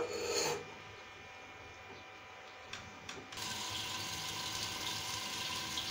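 Onion and tomato masala sizzling faintly in a wok under a metal lid, a fine crackle that grows louder about three and a half seconds in. A short knock at the very start, as of the lid settling on the pan.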